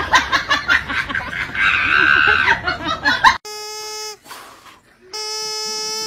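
Clatter and voices for about three seconds. Then long, steady, nasal squeaks as a beagle bites a blue plastic squeak toy: one short squeak, a pause, then a longer one near the end.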